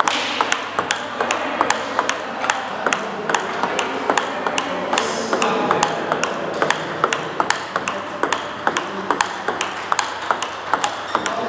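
Table tennis ball clicking against bats and the table during rallies: a quick, irregular series of sharp clicks.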